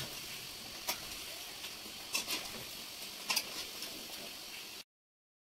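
Samosas deep-frying in hot oil: a steady sizzle with a few sharp clicks, then the sound cuts off suddenly near the end.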